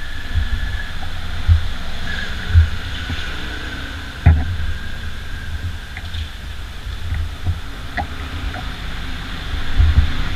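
Oil primer being stirred in its tin to break up the hardened sediment at the bottom, with irregular low thumps and a few sharp knocks of the stirrer against the can.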